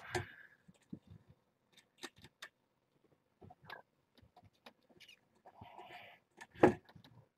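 Young kittens scrambling about on a towel in a wire pen: scattered light scuffs and clicks, with one loud thump about seven seconds in.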